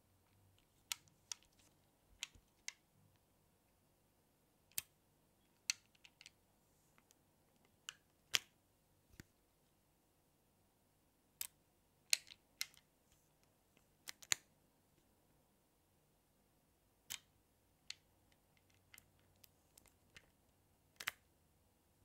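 5 mm magnet balls clicking as they snap together while a flat panel of balls is pressed onto the side of a cube frame: scattered sharp ticks, mostly a second or so apart, some in quick pairs.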